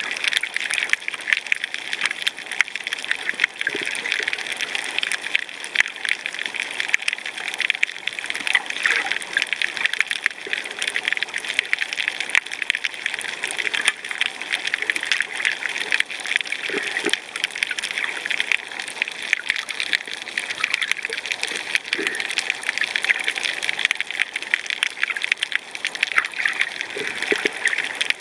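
Underwater coral-reef ambience: a dense, steady crackle of countless tiny snaps, as from snapping shrimp. A few faint, short, lower knocks come through it.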